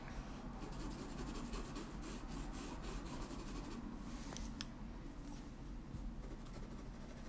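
Pastel pencil scratching and rubbing across toned paper in irregular strokes, with a couple of sharper ticks about halfway through.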